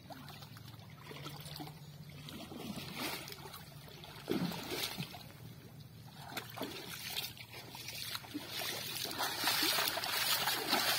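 Pond water splashing and sloshing as a person wading in it sweeps an arm through the surface, in irregular splashes that grow louder and busier near the end.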